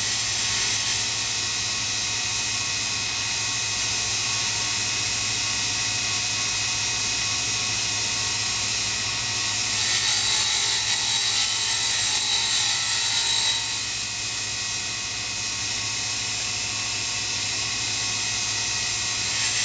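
Sherline grinder's motor and small grinding wheel running, a steady hum under a high hiss. From about ten seconds in, for about three and a half seconds, a louder, higher hiss joins it as a diamond dresser is run across the wheel to true it.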